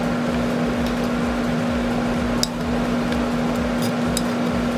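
A steady mechanical hum with one low steady tone, and a few faint clicks of a metal spoon against a steel saucepan as caramelized bananas are scraped out.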